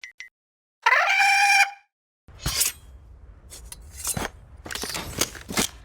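Science-fiction armour gear-up sound effect: two short electronic beeps, a loud rising tone that settles and holds for about a second, then a series of sharp metallic clicks and clanks over a low rumble as the armour pieces lock into place.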